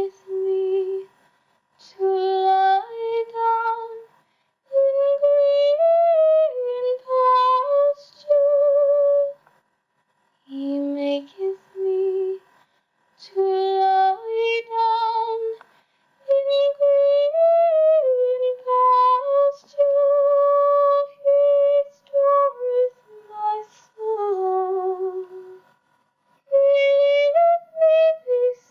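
A cappella singing with no instruments: a single melody line in a high voice, sung with vibrato in short phrases separated by brief pauses.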